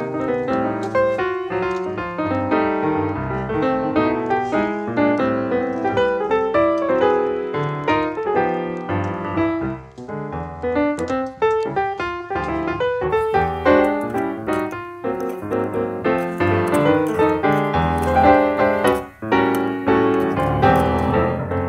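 Background piano music, a steady run of quick notes, with brief drops in level about ten and nineteen seconds in.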